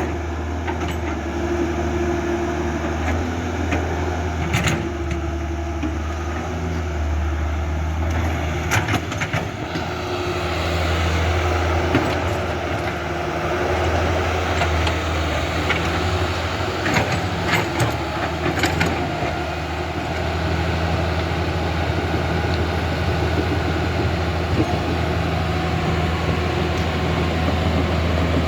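Remote-control toy excavator's electric motors and plastic gearboxes running steadily, with a few sharp clicks.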